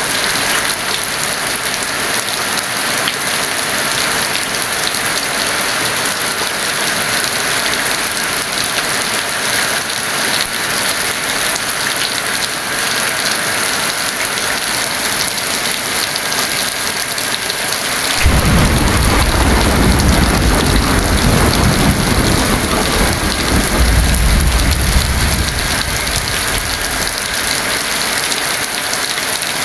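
Heavy rain pouring steadily, with a roll of thunder that breaks in suddenly about two-thirds of the way through, rumbles for several seconds and fades away.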